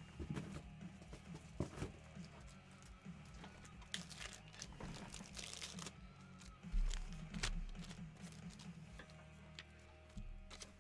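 Card-pack wrappers crinkling and tearing, with cards being handled, in short bursts that are busiest about halfway through, over quiet background music. A low bump about two-thirds of the way through is the loudest moment.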